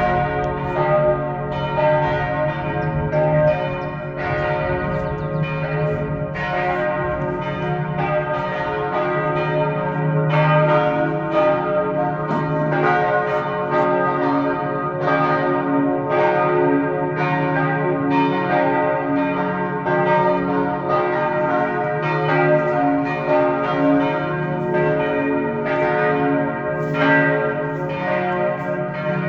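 Church bells ringing a long noon peal: several bells of different pitches struck in quick succession, about two strokes a second, their ringing overlapping. The midday ringing marks the hour of the crucifixion and is a call to prayer.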